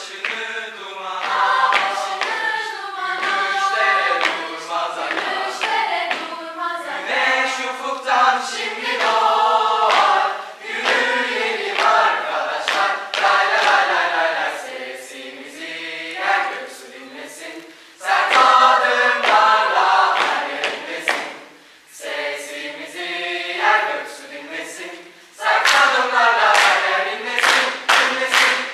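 Student choir of mixed voices singing a cappella in phrases, with sharp hand claps keeping a rhythm, more of them in the second half.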